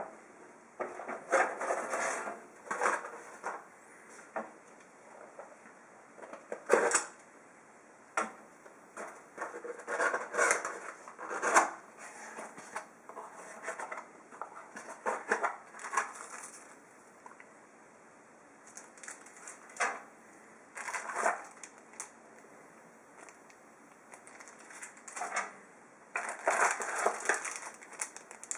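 A PC case's packaging being unpacked by hand: irregular bursts of crinkling and rustling with a few sharp clicks and knocks, separated by short pauses.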